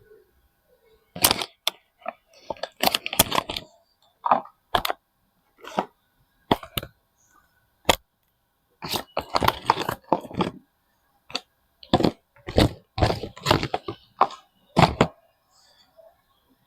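Soap packaging being unwrapped by hand: a run of sharp crinkling and crackling noises with short pauses between them.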